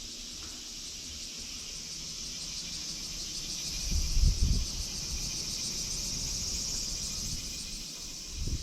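Insects chirring steadily at a high pitch with a fast even pulse. Low rumbling thumps about four seconds in and again near the end.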